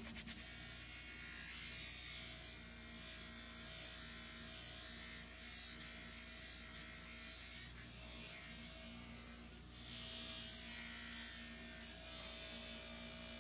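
Buffing wheel's electric motor running with a faint, steady hum.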